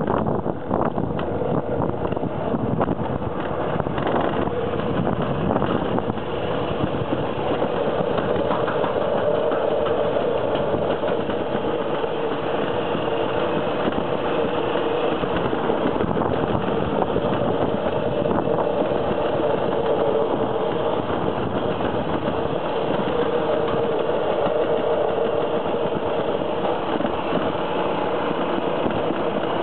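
Summer toboggan sled running down a stainless-steel trough track: a steady rolling rumble with a droning tone.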